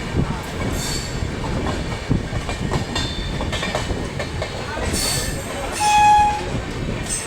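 Indian Railways passenger train running at speed, heard from aboard: a steady rumble and clatter of wheels on the track. About six seconds in comes a short train horn blast, the loudest sound.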